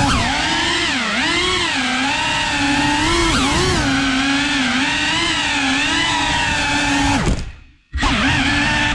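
Cinewhoop FPV drone's electric motors and ducted propellers whining, the pitch wavering up and down with the throttle. Near the end the throttle is cut and the whine falls away for about half a second, then spins back up.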